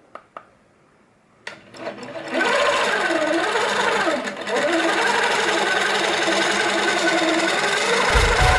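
Sewing machine, freshly oiled with a single drop, started up: a couple of clicks, then after about a second and a half it runs up and keeps sewing steadily at speed, its tone wavering and dipping briefly about four seconds in. A low rumble joins in near the end.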